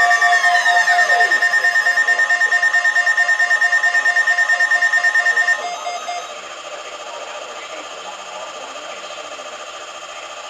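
NOAA Weather Radio alarm: a rapid pulsing beep over a steady tone, with one tone sliding down in pitch about half a second in. The alarm cuts off about five and a half seconds in, leaving a steady radio hiss.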